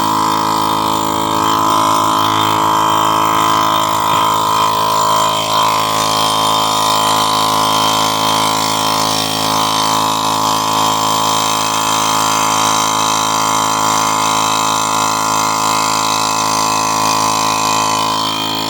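A motor running steadily with a constant, even hum that does not change in pitch.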